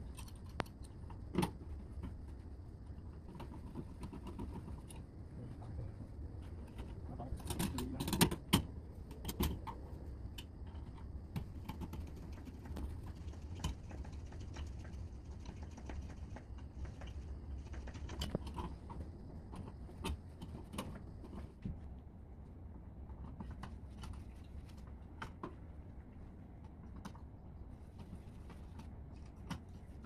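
Scattered small clicks, taps and scrapes of a screwdriver working on a plastic wall outlet being screwed into its box, over a low steady hum; the loudest clicks come about eight to nine seconds in.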